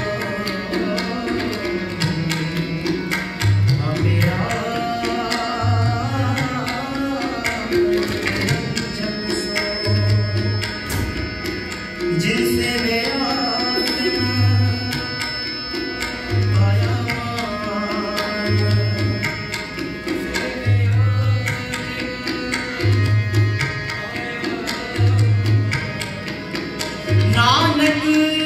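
Sikh kirtan: a sung hymn accompanied by harmonium and tabla, with the tabla's deep bass drum striking about every two seconds under the melody.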